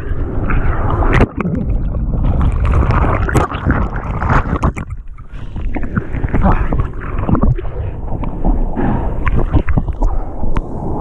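Broken-wave whitewater rushing and splashing around a surfboard, heard close-up through a board-mounted GoPro, with frequent sharp splashes of water against the camera housing and a brief lull about five seconds in.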